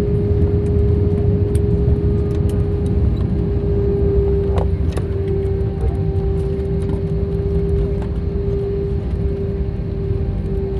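Cabin noise of an Airbus A320 rolling out on the runway after touchdown: a loud low rumble from the wheels and airframe under a steady engine hum, easing slightly as the aircraft slows. A couple of sharp knocks about four and a half and five seconds in.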